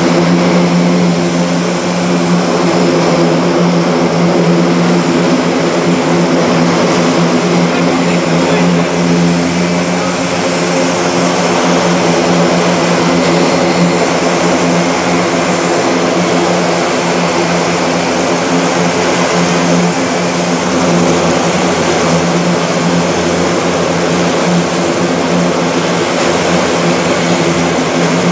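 Airbus A400M Atlas's four Europrop TP400 turboprop engines running steadily with their eight-bladed propellers turning: a loud, even hum over a wide rushing noise.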